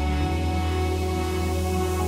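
Progressive trance track: sustained synth pads held over a steady bass note, with no beat, the chord changing about a quarter second in.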